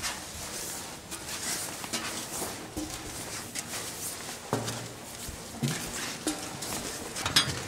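Footsteps climbing steel stairs: irregular knocks and scuffs with a sharper click near the end.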